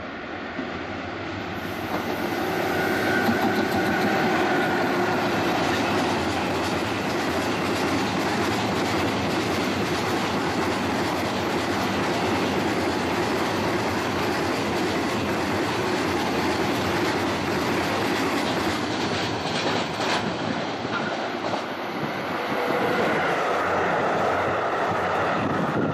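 A long freight train of hopper wagons, hauled by an EF66 electric locomotive, passing close at speed. Its wheels rumble and clack steadily over the rail joints. The sound swells over the first couple of seconds and then holds steady.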